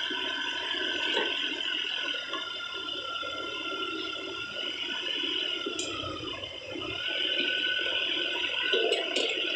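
Mini excavator running with a steady whine while its bucket works through muddy water and wet rubbish, with the water sloshing and splashing. The whine dips briefly about two-thirds of the way in.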